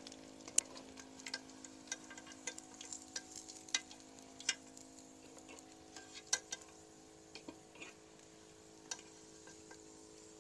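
A metal spoon clinking and scraping irregularly against a steel karahi as fried chicken pakoras are lifted out of the hot oil, over a faint sizzle of frying. The clinks thin out near the end.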